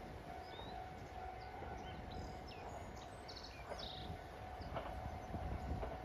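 Faint open-air ambience: scattered short bird chirps over a low wind rumble and a faint steady hum.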